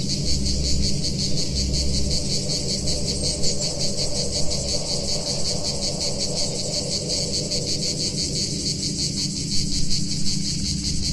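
Field recording of a cicada chorus: a dense, rapidly pulsing high buzz, layered over a steady analog synth drone with low bass notes coming and going, mostly in the first half.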